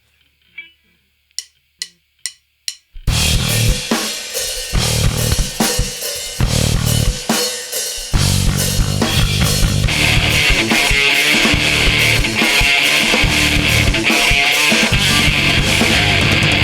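Four sharp clicks about half a second apart count in, then a live rock band with drum kit and electric guitar starts playing loudly, getting fuller and louder a few seconds later.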